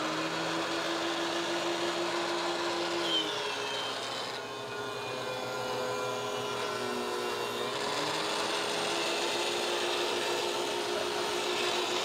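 DeWalt DW735 thickness planer with a Shelix helical carbide cutterhead running and planing a board fed through on a sled. The motor's steady hum drops in pitch from about three seconds in, with a brief squeal as the board enters, and comes back up around eight seconds as the cut ends.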